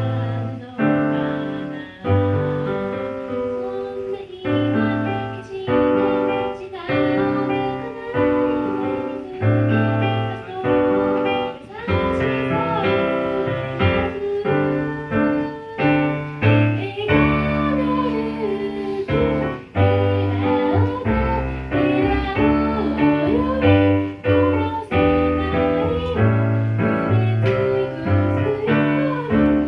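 Keyboard playing a pop tune: chords over repeated bass notes in an even beat. A wavering melody line runs over the chords through the middle of the passage.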